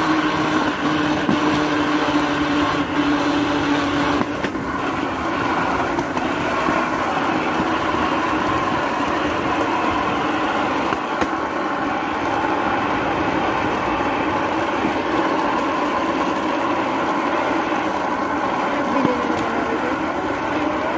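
Small rail cart (trolley) running along railway tracks: a steady mechanical rumble of wheels on the steel rails with a constant hum of several tones. One of the lower tones fades out about four seconds in, and a brief sliding squeal comes near the end.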